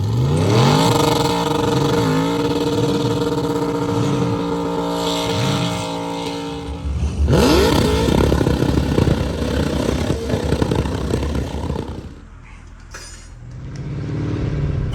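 A car engine held at high revs, its pitch dipping briefly a few times, then about seven seconds in a sudden change to a quick rev rise and rougher, noisier running that dies down near the end.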